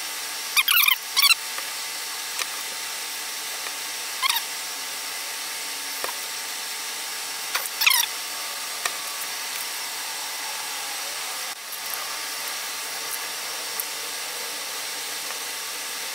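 Short squeaks of steel vise parts rubbing as a Stanley Yankee No. 992 vise is slid and screwed back together: a quick cluster about a second in, then single squeaks near the middle. A steady hiss runs underneath.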